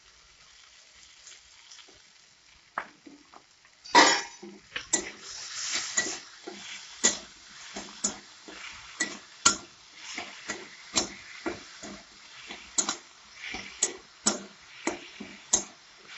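Steel spatula stirring frying vegetables in a metal kadai, scraping and knocking against the pan about once or twice a second from about four seconds in, over a light sizzle.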